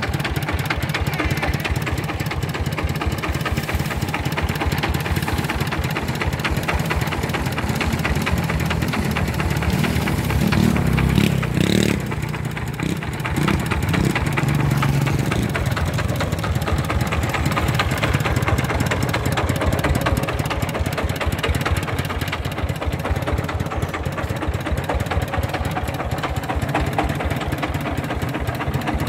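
Old single-cylinder diesel engine of a mobile rice mill running steadily with the rapid, even thumping exhaust beat known as "ledok"; it swells briefly louder around eleven seconds in.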